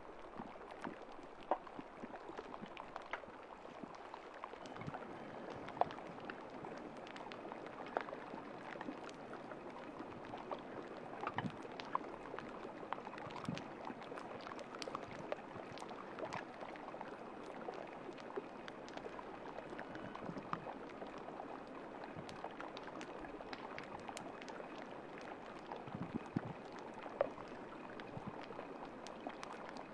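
Water lapping and gurgling among sea ice, a steady wash of sound dotted with many small clicks and pops.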